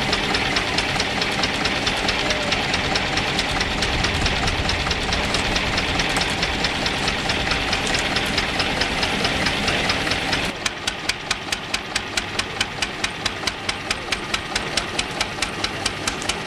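Stationary engine running on wood gas from a downdraft gasifier, under a loud steady hiss. About ten seconds in, the hiss drops away and the engine's even firing stands out, about three to four beats a second.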